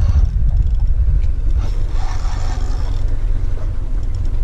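Wind buffeting the microphone: a loud, uneven low rumble, with a brief hiss about two seconds in.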